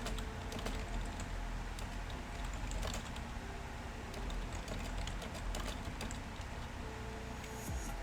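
Typing on a computer keyboard: irregular key clicks, some in quick clusters.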